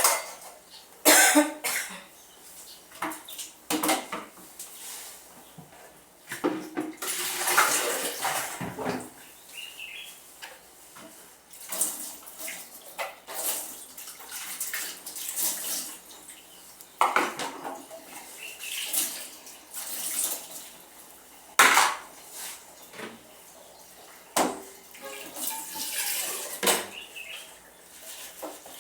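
Dishes and cutlery being washed by hand in standing water rather than under a tap: water splashing and sloshing in stretches, with repeated sharp clinks and clatter of plates and utensils.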